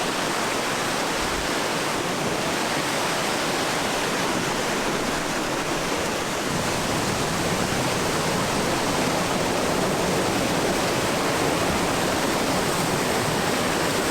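Running mountain water, a steady even rush.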